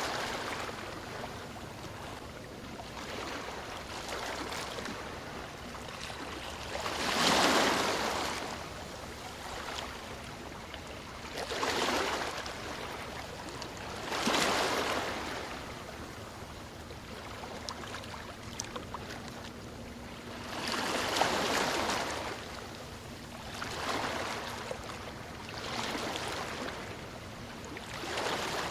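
Ocean waves breaking and washing on the shore, a surge of surf every few seconds over a steady wash, the strongest breakers about a quarter of the way in and again about three-quarters of the way in.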